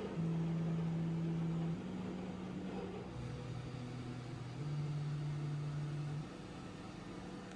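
Soft background music: slow, sustained low notes that change pitch every second or two.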